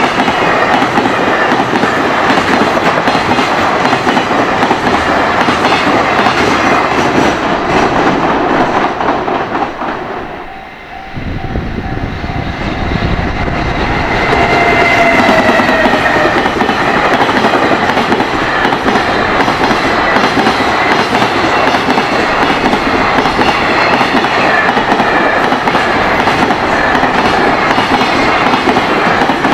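Train passing at speed, its wheels clattering over the rail joints in a steady clickety-clack. The noise dips briefly about ten seconds in, then comes back just as loud, with a faint whine around fifteen seconds in.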